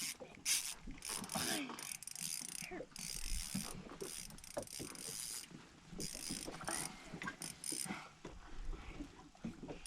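Fishing reel being cranked: short, repeated bursts of whirring and clicking from the reel's gears and ratchet, stopping and starting.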